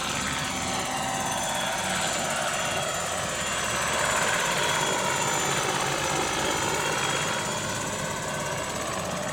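Large-scale RC model Lama helicopter flying past close by: the main rotor beats rhythmically under a high motor whine that shifts in pitch as it goes by. It is loudest about four seconds in, as it passes nearest.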